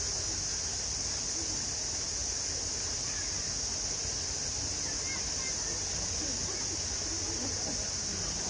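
Cicadas droning in a steady, high-pitched chorus.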